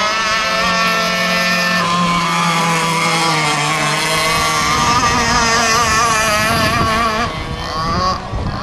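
Radio-controlled gas hydroplane boat's small two-stroke petrol engine running at speed across the water: a high engine whine that wavers up and down in pitch as the boat runs and turns, easing off a little about seven seconds in.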